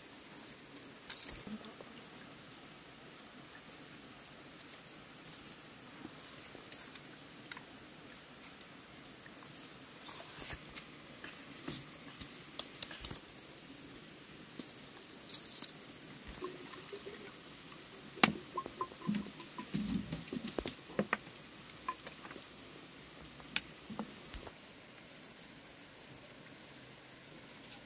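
Wet rice grains pattering and rustling as they are scooped by hand and dropped into a green bamboo tube, with light clicks and taps, busiest about two-thirds of the way through.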